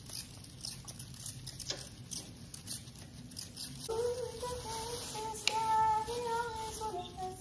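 Plastic bags crinkling and rustling under plastic-gloved hands. About four seconds in, a voice starts singing a wordless tune in a few long, high held notes.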